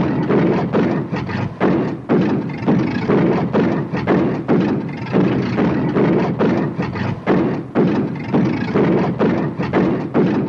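Old car's engine running rough with a fault, its beat uneven and lumpy, with strong irregular pulses a couple of times a second.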